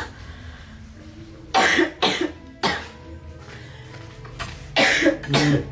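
A woman coughing in two short fits, a few coughs about a second and a half in and another pair near the end, from a cough that has lingered for a week. Background music plays under it.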